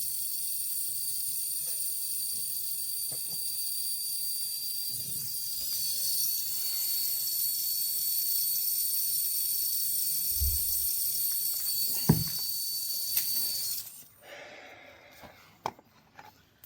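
Brazing torch flame hissing steadily with a thin high whistle while a Schrader valve is welded onto the refrigeration line. The hiss cuts off abruptly about fourteen seconds in as the torch is shut off, leaving a few light clicks.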